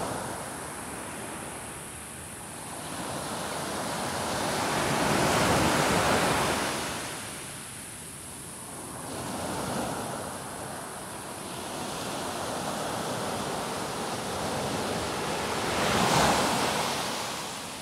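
Small ocean waves breaking and washing up a sandy beach, the surf swelling and ebbing, loudest about five to six seconds in and again near the end.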